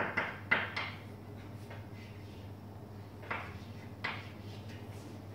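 Chalk writing on a blackboard: short scratchy taps and strokes, several in the first second, then two more about three and four seconds in.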